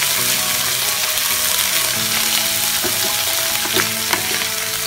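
Sliced onions with ginger and garlic paste sizzling in hot mustard oil in a frying pan, stirred and scraped with a wooden spatula. The steady frying hiss is the paste being fried until its raw smell is gone.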